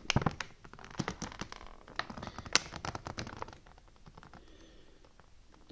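Plastic dry-food bag being handled, crinkling in irregular sharp crackles that thin out and grow quieter after about three seconds.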